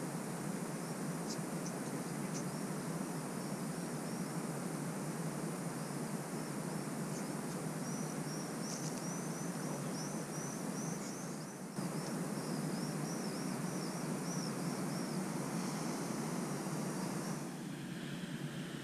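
Steady rushing wind noise on the microphone. A run of short, repeated high chirps sounds from about a second in until about fifteen seconds in. The noise eases slightly near the end.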